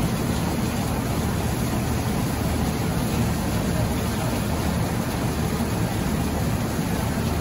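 Fire engine's diesel engine running steadily at pumping speed, its pump supplying charged hose lines; a constant noise with no breaks or changes.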